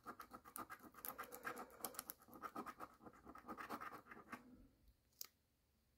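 A coin scraping the coating off a scratch-off lottery ticket in quick, faint, short strokes, stopping about four and a half seconds in. A single light tick follows near the end.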